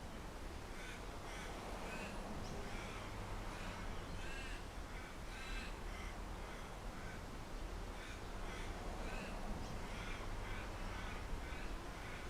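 Birds calling over and over in many short calls, about two a second, over a steady low rumble of wind.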